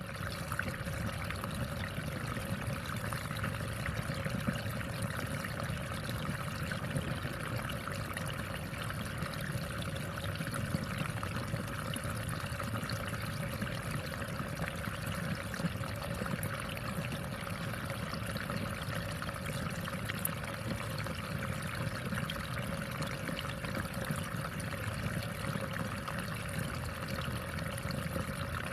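Water running steadily in a rice paddy.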